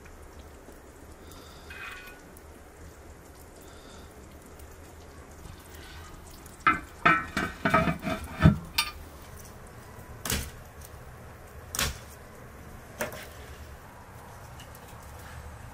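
A metal spoon and pot lid clinking and knocking against a metal cooking pot in a quick run of ringing strikes for about two seconds, followed by a few single clicks, over a low steady background.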